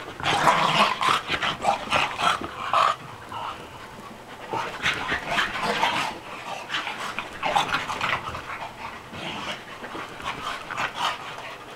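An English bulldog and a corgi playing chase: panting and scuffling paws, coming in several loud bursts a few seconds apart with quieter gaps between.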